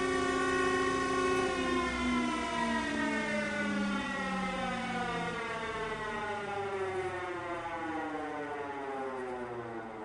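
Electric power planer switched off: its motor's whine holds steady for about a second and a half, then falls steadily in pitch and fades as the motor and cutter head spin down.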